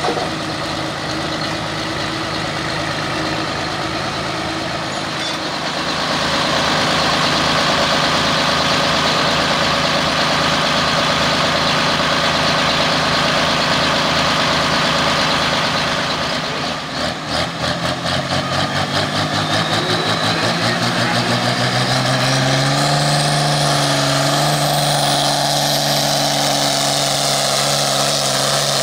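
White pulling tractor's diesel engine running loud and steady, then briefly pulsing and rising in pitch as it takes the load and starts the pull, with a high whine climbing in pitch near the end.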